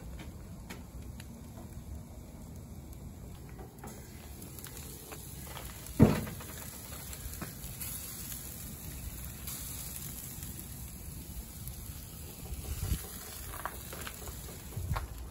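Beef souvlaki skewers sizzling on a gas grill with the burners lit, a steady hissing crackle. A single sharp knock about six seconds in, and a few softer clicks near the end.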